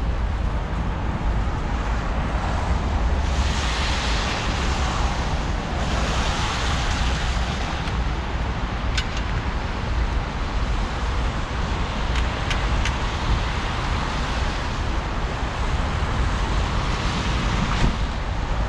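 City traffic on a wet, slushy road: a steady low rumble with tyre hiss that swells now and then as vehicles pass, and a few faint sharp ticks in the middle.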